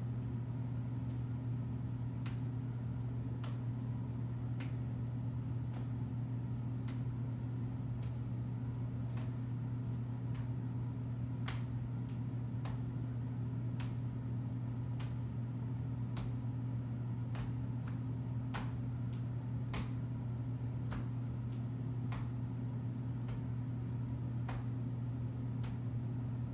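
A steady low hum, with faint soft taps about once a second as the arms swing side to side in a standing twist and the hands pat against the body.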